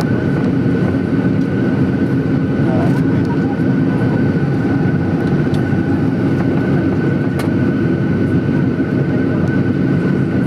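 Cabin noise of a Boeing 737-800 rolling on the ground after landing: a steady engine and airframe rumble with a constant high whine from the engines. A couple of faint clicks come partway through.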